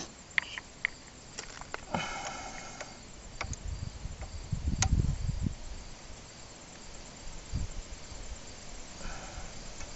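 Scattered small metallic clicks and knocks as the Kawasaki KDX200 shift shaft and shifter pawl mechanism are refitted and worked by hand, with a low handling clunk and rumble around the middle. Crickets chirp faintly and steadily underneath.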